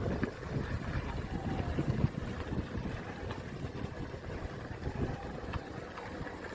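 Heavy rain and water pouring from rain gutters: a steady rushing noise, heavy in the low end, heard through a window, with a few faint clicks.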